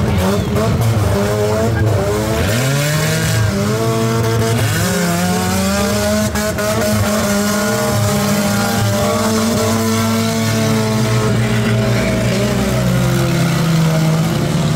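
Several banger racing car engines revving hard, their pitch repeatedly rising and falling, with tyre squeal from wheelspin.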